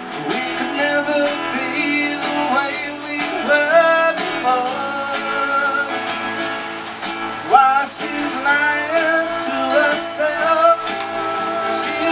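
Live acoustic band music: strummed acoustic guitars and a hand drum, with a melody line over them that slides between notes.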